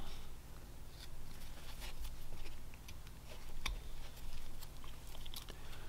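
Carving knife making small V-cuts in basswood: faint, irregular scraping and clicking strokes, over a low steady hum.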